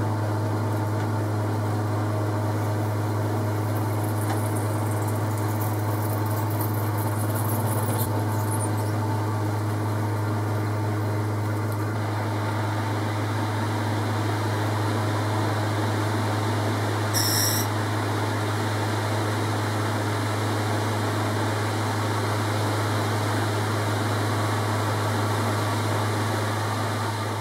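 Metal lathe running steadily with a strong low hum while a twist drill bores into a nylon bar spinning in the four-jaw chuck, with one brief click about two-thirds of the way through.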